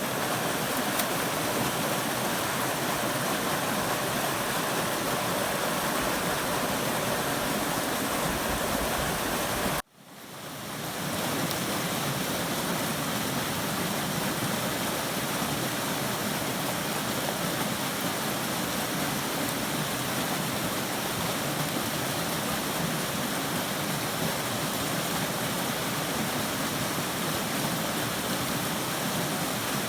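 Steady rush of a small river tumbling over a low waterfall into a pool. The sound breaks off abruptly about ten seconds in and fades back up.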